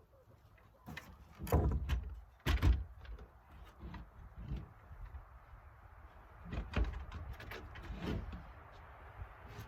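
A series of hollow knocks and thumps, the two loudest close together near the start and two more near the end, with lighter knocks between them.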